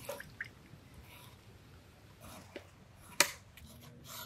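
Knife blade clicking on a wooden cutting board a few times as vegetables are cut, the loudest about three seconds in. Between the cuts, faint squishing of a lime being squeezed by hand.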